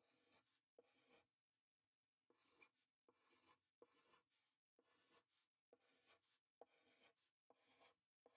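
Pencil faintly scratching on paper, circling letters one after another in short strokes about one a second.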